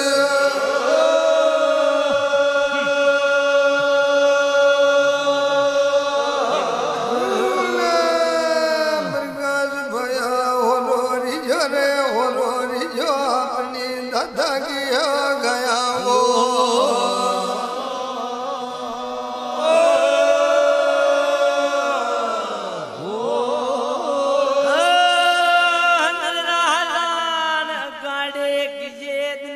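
Devotional chant sung in long held notes with slow sliding pitch, trailing off near the end.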